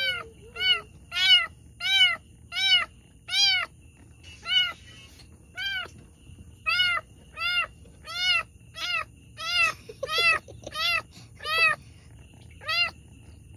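A pregnant cat in labour meowing over and over: a long run of short calls, each rising and falling in pitch, roughly one or two a second, with a short pause about halfway through.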